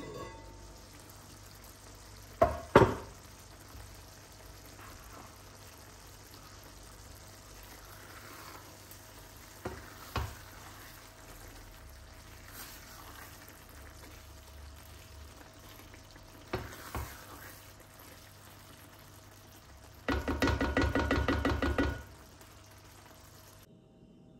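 Macaroni in tomato sauce simmering with a soft sizzle in an enamelled cast-iron pan while a silicone spatula stirs it. There are a few sharp knocks, the loudest about two and a half seconds in, and a rapid rattling for about two seconds near the end.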